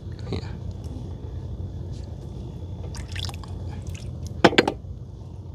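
Water dripping and splashing, with two sharp clicks about four and a half seconds in, over a steady low hum.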